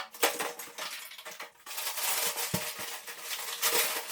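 Plaster for drywall joints being mixed: a rapid, irregular run of scraping and clinking from the mixing tool against its container, with a sharp knock at the start.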